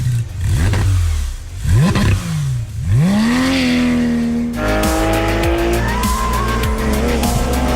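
Porsche 911 GT3 RS's naturally aspirated flat-six revving hard: a few quick rises and falls in pitch, then a climb about three seconds in to a high, held note that steps up again a little past halfway and stays near the top.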